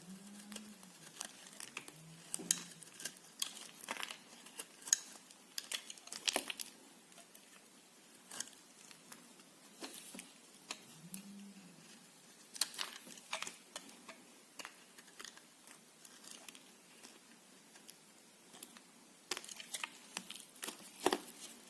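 Knife cutting through bar soap: irregular crisp cracks and crunches as the blade goes through and pieces break away.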